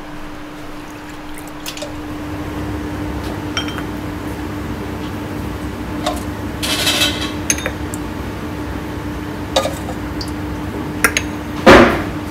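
Chawanmushi egg mixture ladled from a stainless steel bowl into small cups, the metal ladle clinking against bowl and cups, over a steady hum. A single loud knock near the end is the loudest sound.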